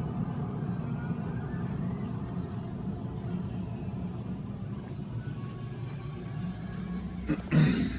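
A steady low mechanical hum, with a brief louder noise near the end.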